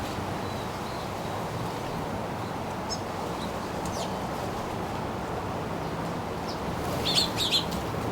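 Birds feeding, chirping a few times in short high calls, with a quick cluster of louder chirps near the end, over steady wind noise.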